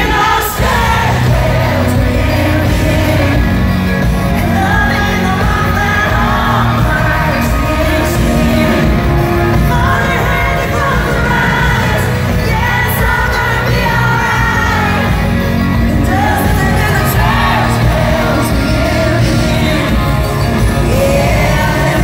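Live country-pop band with a woman singing the lead vocal, loud and steady, over electric guitar and bass, recorded on a phone in the arena.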